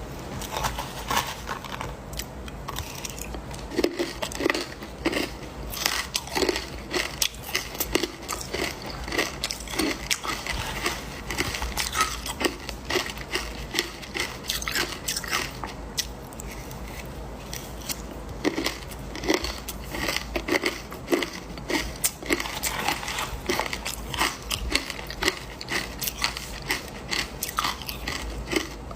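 A person biting and chewing ice, with many sharp crunches in quick, irregular succession.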